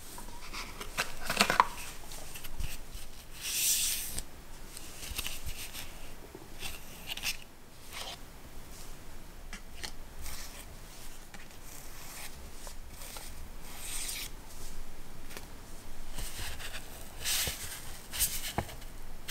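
Unboxing handling sounds from an iPhone box: gloved fingers moving a charging cable, paper leaflets and a card sleeve, with intermittent rustles, crinkles and soft taps. The loudest comes about a second and a half in.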